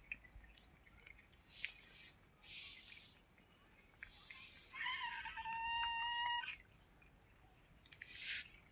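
A domestic cat meowing once, a single long steady meow of nearly two seconds about five seconds in, with a few short soft hissing or rustling noises around it.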